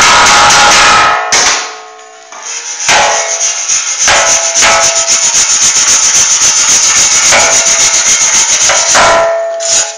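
Angle grinder with an abrasive disc grinding weld beads on a sheet-steel bumper. The grinding stops about a second in, starts again about three seconds in and goes on with an even pulsing in loudness, then cuts off just before the end, leaving the grinder's whine briefly as it spins free.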